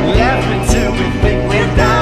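Background music: a song with a steady beat and held notes.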